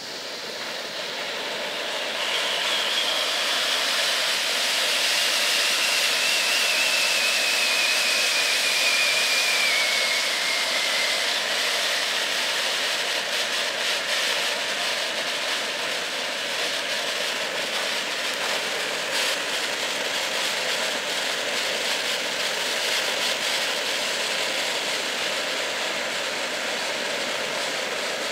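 Ground fireworks fountain spraying sparks with a steady rushing hiss. The hiss builds over the first few seconds and then holds. For several seconds early on, a thin whistle slides slowly down in pitch.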